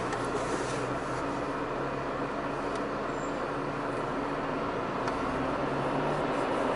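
Steady engine hum and traffic noise from cars idling in a stopped queue.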